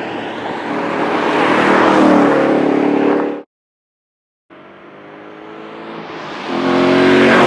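Ford Mustang 5.0-litre V8 engine and exhaust as the car drives by, swelling as it nears, with the engine note dropping about two seconds in. It cuts off suddenly, and after about a second of silence a second drive-by starts and builds louder near the end.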